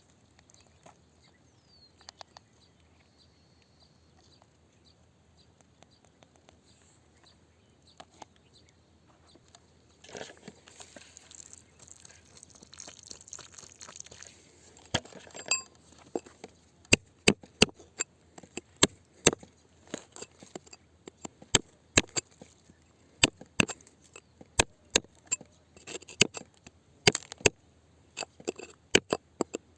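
Hand digging tool striking rock in repeated sharp knocks, about one to two a second, starting a little past the middle after a mostly quiet stretch with faint scraping.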